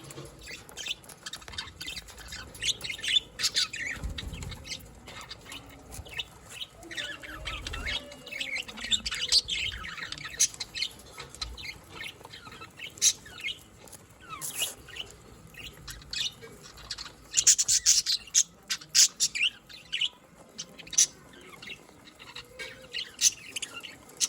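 Budgerigars chirping and warbling in a run of short, high, irregular calls, busiest and loudest about three-quarters of the way through.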